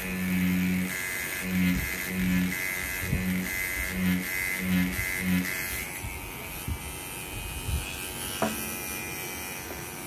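Rotary tattoo pen buzzing in uneven on-off pulses as the needle works a practice skin, then going quiet about six seconds in.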